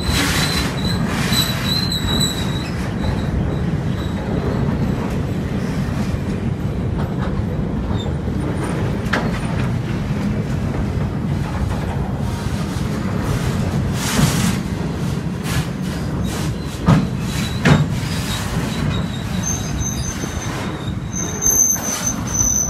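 Rail-carrying work train's flatcars rolling slowly past close by: a steady rumble of steel wheels on the track. A thin high wheel squeal comes at the start and again near the end, and a few sharp knocks come about two-thirds of the way through.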